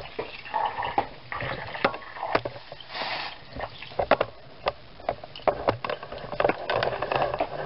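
Kitchen handling noise as a glass saucepan of hot melted butter is carried from the stove to the counter: scattered clicks and knocks with rustling between them.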